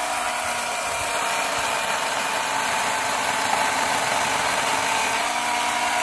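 Scotts 24-volt cordless electric chainsaw with a 12-inch bar running under load as its chain cuts through a small branch. The motor's pitch sits lower during the cut and rises again about five seconds in as the load eases.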